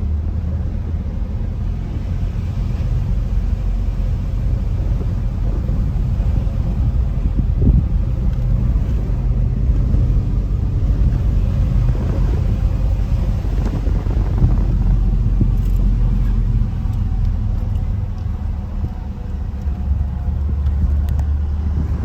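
A car driving, with a steady low rumble of engine and road noise that swells slightly partway through and eases near the end.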